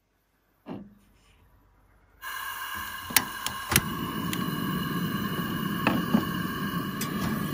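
Gas camp stove burner lit and burning with a steady hiss that starts suddenly about two seconds in, with several sharp clicks over it.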